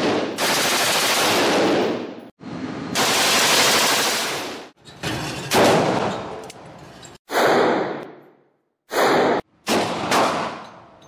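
Gunfire: strings of rapid shots in edited bursts of a second or two, each cut off abruptly before the next begins, some trailing off with range echo.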